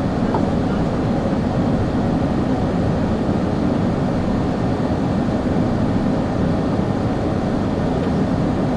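Airbus A380 cabin noise: a steady low rumble of the engines and airflow heard from inside the passenger cabin.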